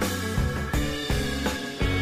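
Background rock music with a steady drum beat and a bass line.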